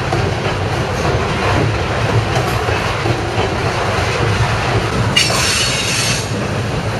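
Freight train of hopper cars rolling over a steel trestle bridge: a steady rumble and rattle of wheels on rail. About five seconds in, a brief high wheel squeal lasts about a second.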